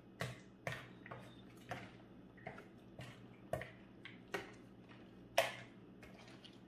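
A utensil stirring creamy fruit salad in a glass mixing bowl, clicking against the glass in irregular knocks about once or twice a second, with one louder knock about five seconds in.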